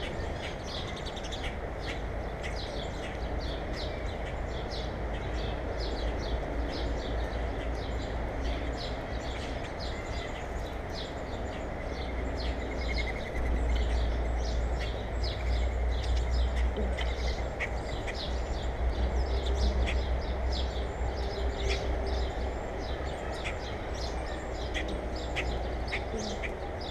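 Small birds chirping, many short high chirps in quick succession throughout, over a steady low rumble that gets louder about halfway through.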